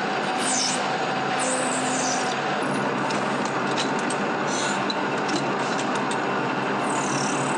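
Metal lathe and workshop machinery running steadily while turning small metal parts, a dense mechanical din with a faint hum. Brief high squeals come and go, and a few light clicks sound in the second half.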